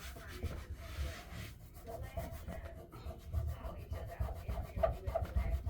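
Sprayed cleaner being wiped off a bathroom sink cabinet front, in repeated rubbing strokes across the surface.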